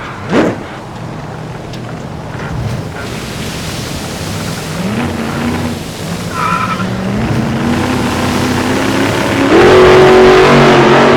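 Sports car engine revving and accelerating, its pitch climbing in steps and growing louder, loudest near the end. A brief loud sound falling in pitch about half a second in.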